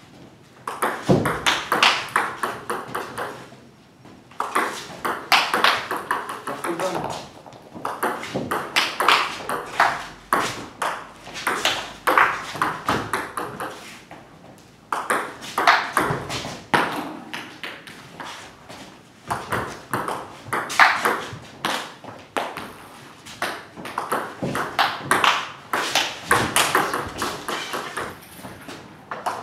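Table tennis ball being played back and forth: quick sharp clicks of the ball off the bats, one of them faced with long-pips rubber, and bounces on the table. They come in rallies of several seconds with short pauses between points.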